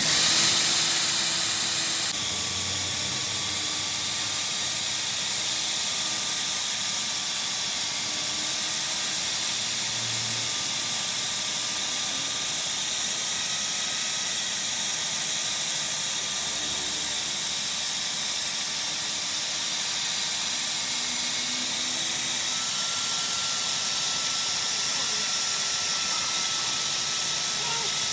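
Steady machine hiss with a faint, even hum beneath it, unchanging throughout.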